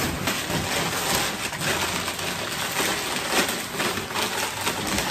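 Crumpled packing paper rustling and crinkling continuously as china cups are unwrapped by hand from a cardboard box.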